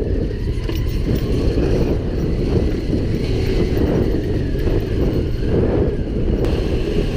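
Motorcycle engine running as the bike rides a dirt track, heard from an onboard camera, with wind buffeting the microphone.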